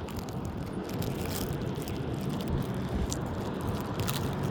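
Plastic film crackling faintly a few times as a sticky fruit roll-up is peeled off its backing, over a steady low rumble.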